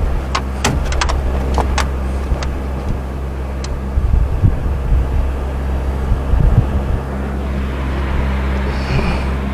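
Boat motor running with a steady low hum. There are a few sharp clicks in the first two seconds and low thumps around the middle.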